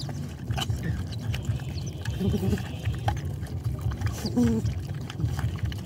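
Several dogs lapping and slurping wet food from a shared bowl: a fast, uneven run of wet licking clicks, with a couple of short low calls about two and four seconds in.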